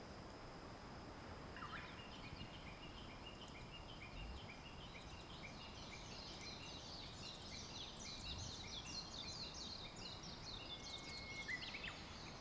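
A small bird singing outdoors: a long run of short repeated chirps that turns into faster, higher twittering about halfway through, faint over a steady outdoor hiss.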